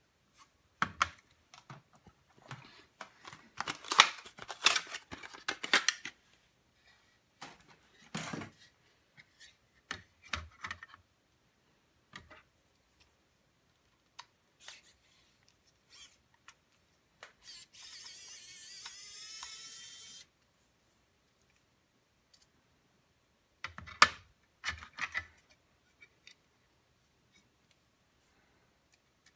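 Clicks, taps and scraping of plastic and metal parts being handled while a laptop is taken apart, busiest in the first few seconds and again in a short flurry near the end. Past the middle comes a steady hiss lasting about three seconds.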